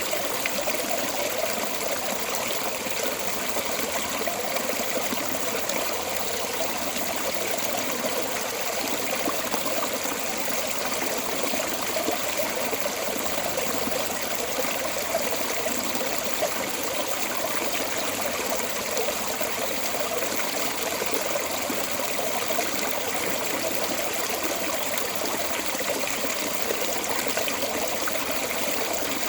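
Water pouring out of a storm drain outlet, a steady rushing flow.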